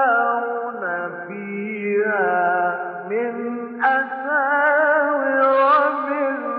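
Male Quran reciter chanting in the ornate mujawwad style: long held notes with quick melodic turns and wavering ornaments, shifting pitch every second or so, with a louder, higher phrase starting about four seconds in. The recording is old and thin, with little above the middle of the voice.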